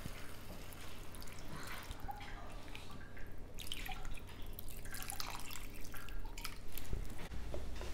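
Water poured from a cup into a pan of chilli-fried chicken, splashing and dripping as it loosens the masala into a gravy, while a wooden spatula stirs through it.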